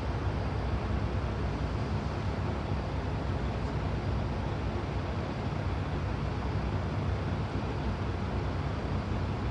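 Vehicle engines running with a steady low drone in slow traffic, with no change in pitch or level.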